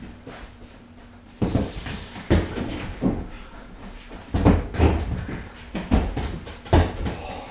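Soccer ball being dribbled and tackled on a painted concrete floor: about seven irregular thuds of the ball against feet and floor, with feet scuffing and sliding between them.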